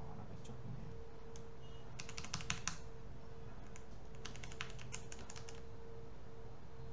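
Computer keyboard keys clattering in two short bursts, about two seconds in and again from about four to five and a half seconds in, over a steady hum.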